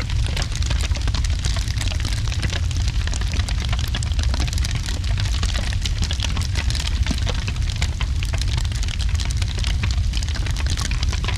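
Wood fire crackling with many small pops over steady rain, with a constant deep rumble underneath.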